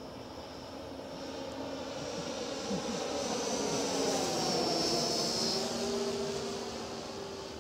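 Radio-controlled ESM DHC-2 Beaver scale model plane flying past, its engine and propeller drone growing louder to a peak about four to five seconds in, then fading, with the pitch dropping as it goes by.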